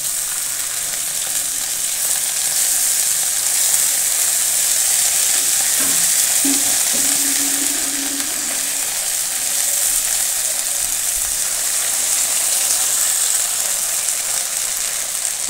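Silver carp steaks sizzling steadily as they shallow-fry in hot oil in a karai, with a spatula turning them over in the pan.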